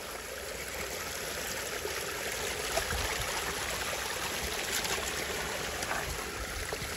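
Shallow stream running over rocks and stones, a steady rushing trickle.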